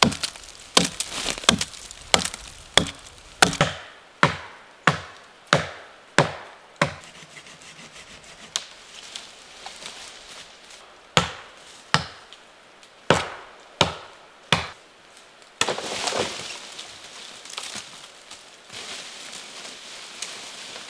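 An axe chopping into the trunk of a small standing tree: a steady run of sharp wooden strikes, about three every two seconds, then several slower single strikes. Near the end the strikes give way to several seconds of crackling and rustling.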